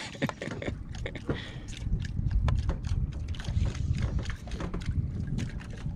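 Wind rumbling on the microphone and water sloshing around a small outrigger boat, with scattered light clicks; the rumble swells about two seconds in.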